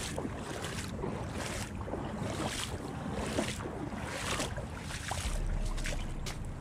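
Wind blowing on the microphone, with a heavier low buffet coming in about five seconds in, over irregular rustling and small knocks as gloved hands handle a fish.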